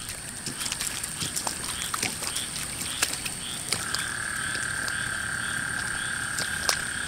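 Frogs calling after heavy rain: short calls repeated about three times a second, and one long steady trill that starts about four seconds in. Under them runs a constant high-pitched whine, with scattered small clicks.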